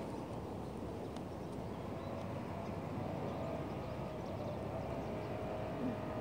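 Steady low outdoor background rumble, with a faint hum joining about halfway through and a single soft knock near the end.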